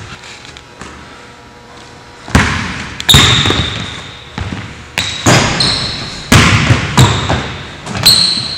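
Basketball bouncing hard on a hardwood gym floor, with sneakers squeaking between the bounces; the first bounce comes about two seconds in, then about six more at an uneven pace, each echoing in the hall.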